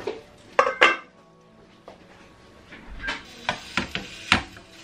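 Metal clatter at a gas hob: a stainless steel pan lid clanks twice as it is set down a little under a second in, then a spatula knocks several times against the frying pan near the end. Quiet background music runs underneath.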